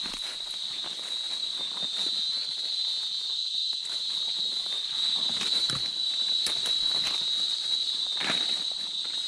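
Steady high-pitched insect chorus, one unbroken shrill note, with scattered footsteps and rustling over it.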